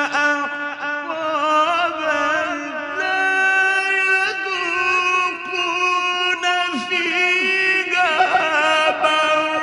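A male Quran reciter's voice in long melodic phrases in a high register, with wavering ornaments and the held pitch stepping up about three seconds in.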